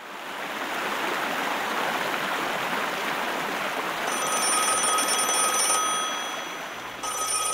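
Rushing water fades in, then an old rotary-dial telephone's bell rings twice: one ring of under two seconds about four seconds in, and a second ring starting near the end.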